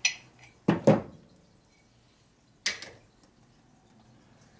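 Metal tools and parts clinking and clattering on a workbench: a sharp click at the start, a louder double clank about a second in, and another clink a little before the three-second mark.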